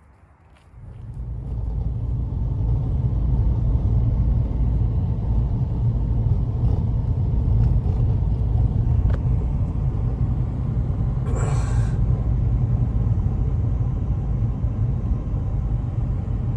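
Wind rumbling steadily on the microphone, swelling up about a second in. A short hiss comes about two-thirds of the way through.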